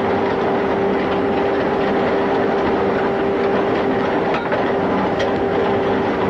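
Longwall coal face machinery running: a loud, steady mechanical din with a constant hum, and a couple of sharp clanks in the second half.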